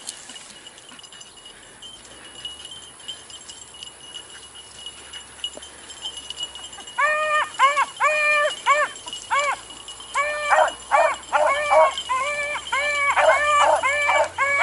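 Rabbit-hunting beagles baying on a rabbit's track: a run of short, arched, yelping bawls that starts about seven seconds in and comes several times a second, growing denser and overlapping near the end.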